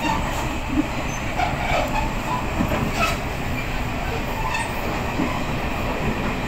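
Passenger train running along the line, heard from inside the carriage: a steady low rumble from the wheels on the track, with a few sharp clicks and short squeaks over it.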